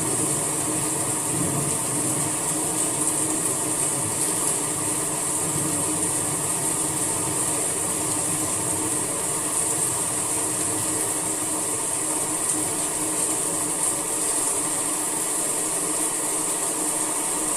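Steady summer rain falling: an even, unbroken hiss.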